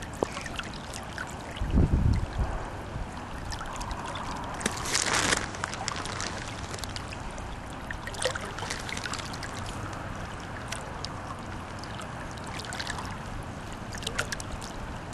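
Steady rush of a river's current flowing around a wading angler, with a low rumble about two seconds in and a short, louder hiss about five seconds in.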